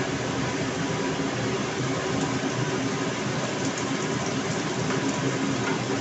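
Kitchen range hood fan running with a steady noisy hum, over onion sizzling as it goes into hot bacon fat in a pan.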